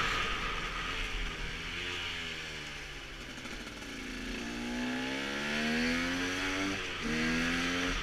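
KTM 125 two-stroke enduro motorcycle engine heard from the rider's position with wind noise on the microphone. The engine note sinks for the first few seconds, then climbs as the bike accelerates. It breaks off briefly about seven seconds in for a gear change and climbs again.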